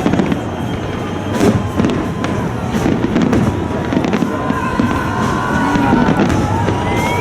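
Fireworks going off: a dense crackle with several sharp bangs spread through it, and thin whistling tones from about four seconds in.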